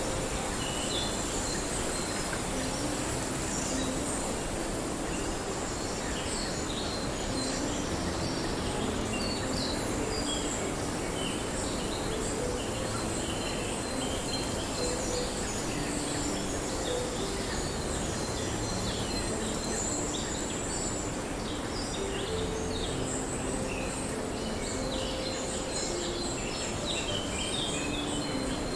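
Tropical rainforest ambience: a steady high insect drone with many short bird chirps and calls over an even background hiss.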